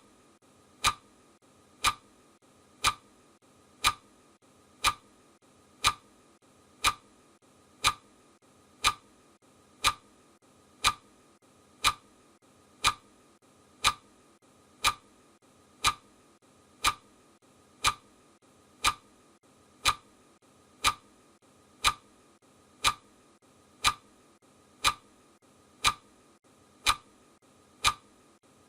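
Clock ticking steadily, one sharp tick each second, as a countdown timer's ticking sound effect. A faint steady hiss lies under the ticks.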